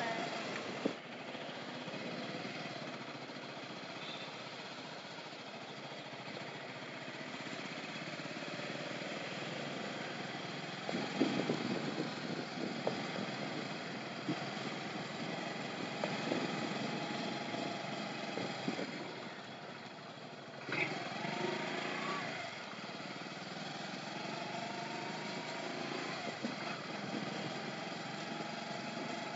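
Motorcycle engine running while riding through city streets, its note rising and falling with the throttle.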